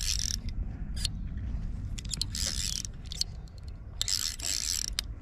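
Fly reel's click-and-pawl ratcheting in about four bursts of rapid clicks as line is wound in on a hooked fish, over a steady low rumble.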